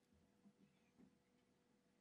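Near silence: faint room tone with a steady low hum and two faint soft bumps, about half a second and a second in.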